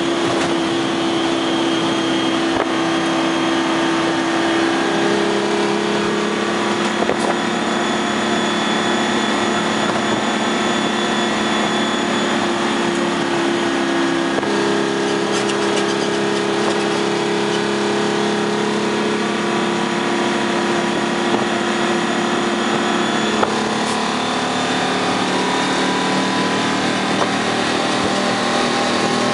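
1972 Dodge AT4-760 truck's 6V53 Detroit Diesel two-stroke V6 running steadily under way, heard from inside the cab. The engine note steps to a new pitch a few times.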